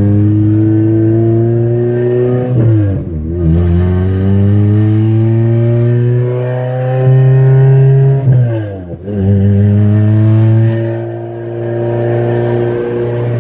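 A 2006 Corolla XRS's 2ZZ-GE four-cylinder engine accelerating hard, heard from inside the cabin with the windows down. The pitch climbs, drops sharply at about three seconds and again at about nine seconds as it is shifted up a gear, then climbs again.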